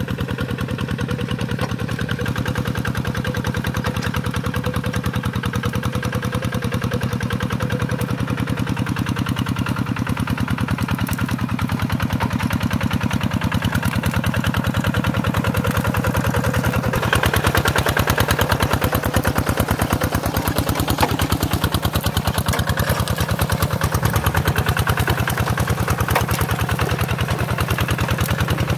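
Single-cylinder diesel engine of a two-wheel hand tractor running steadily with a rapid, even thumping beat as it pulls its steel cage wheels through paddy mud. It gets louder about two-thirds of the way through as the machine comes close.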